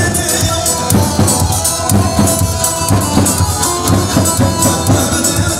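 Kurdish wedding dance music: a steady drum beat with tambourine and a keyboard melody.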